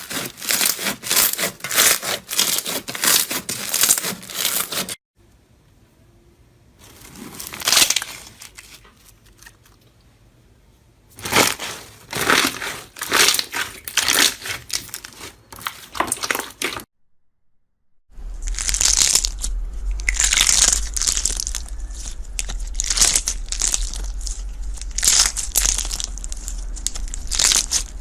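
Slime being squeezed, pressed and pulled apart in a run of short clips, making dense crackling, crinkling crunches. One stretch about a third of the way in is much quieter, and the last clip has a steady low hum beneath the crunching.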